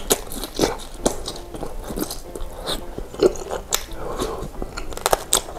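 Close-miked chewing of baso aci, chewy tapioca-flour balls in spicy broth, with many wet mouth clicks and smacks.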